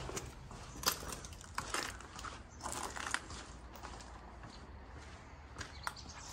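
Footsteps crunching over scattered rubble and broken plaster, then on gritty concrete: a run of uneven crunches, loudest about a second in and again around three seconds in.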